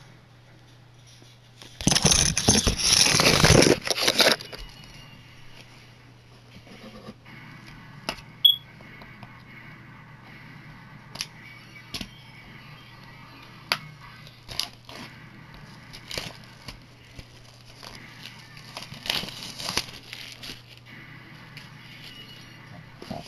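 Packaging being handled during an unboxing: a loud burst of tearing and crinkling about two seconds in, lasting about two seconds, then scattered clicks and taps as the box is turned over and handled, with another short rustle near the end. A steady low hum runs underneath.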